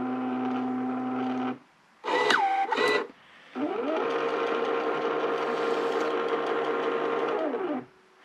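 Desktop label printer printing a label: its feed motor runs steadily and stops about a second and a half in. A short whir follows that dips and rises in pitch, then the motor runs again for about four seconds, rising in pitch as it starts and falling as it winds down.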